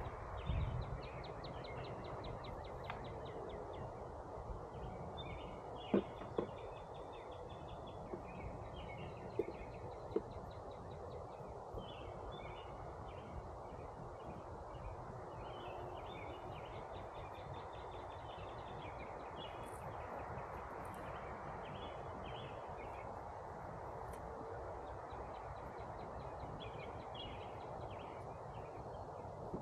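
Songbirds singing repeated rapid trills over a steady background hum, with a few soft knocks about six and ten seconds in.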